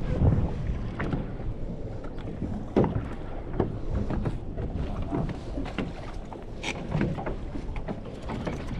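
Wind buffeting the microphone over water lapping against a small fishing boat, with scattered light knocks and clicks.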